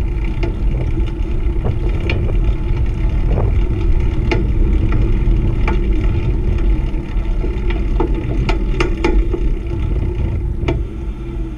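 Wind buffeting a bike-mounted action camera's microphone while riding a beach cruiser on asphalt, a steady low rumble with rolling tyre noise, broken by frequent sharp clicks and rattles from the bike over the road surface. It eases slightly near the end.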